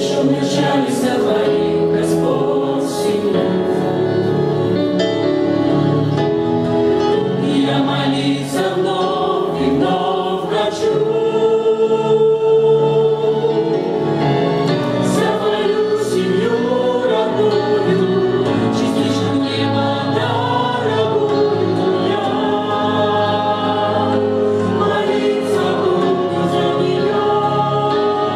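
Mixed choir of men, women and children singing a Russian-language hymn together into microphones.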